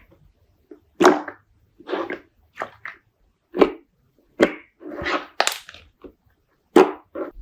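Slime being squeezed and poked by hand: about ten separate short squishes and pops at irregular intervals.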